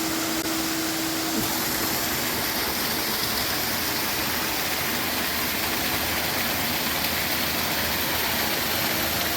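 Waterfall rushing: a steady, even roar of falling water, with a faint steady hum in the first second or so.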